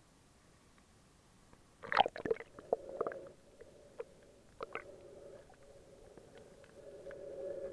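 Waterproof action camera plunging under the sea surface about two seconds in: a burst of splashing and sharp knocks on the housing. It is followed by a steady, muffled underwater hum.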